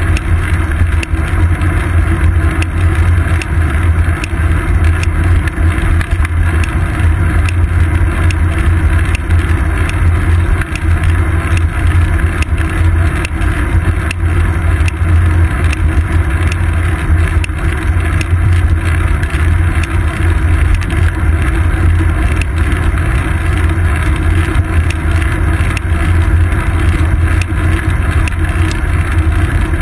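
Bicycle riding along a paved path, heard through a GoPro Hero 2 clamped to the seat post: a loud, steady low rumble of wind and road vibration, with frequent small clicks and knocks.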